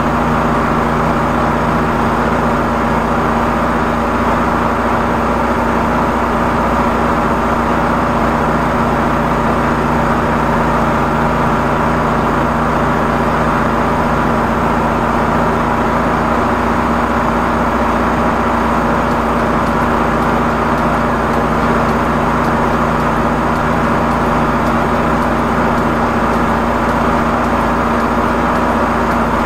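High-pressure drain jetter's engine-driven pump running steadily with a constant hum, powering the hose fed into the stormwater pipe.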